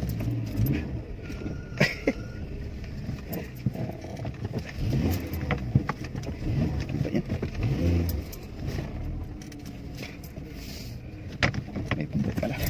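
Car driving slowly, heard from inside the cabin: a low engine and road rumble with scattered light clicks and rattles.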